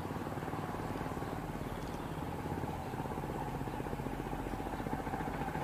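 Diesel railbus engine running steadily: a low, even throb with a faint steady hum above it.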